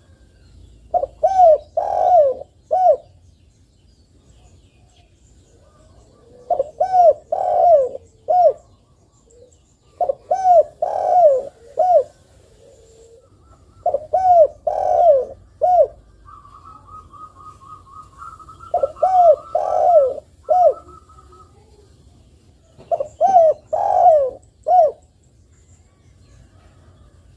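Spotted dove cooing: six phrases of four or five rising-and-falling coos each, repeated about every four seconds.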